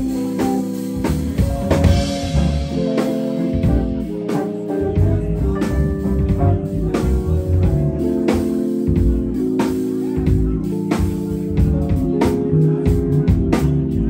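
Live band playing an instrumental groove: semi-hollow electric guitar over bass, keyboard and drum kit, with a steady drum beat.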